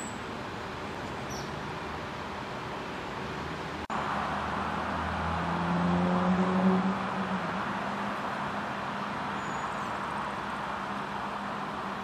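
Steady city traffic noise. A short dropout about four seconds in, after which a road vehicle's engine passes close, loudest a little past the middle.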